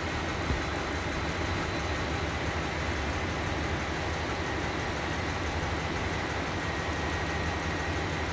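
Steady drone of running ship's engine-room machinery: a low hum with a faint high whine above it, unchanging throughout, with one light tap about half a second in.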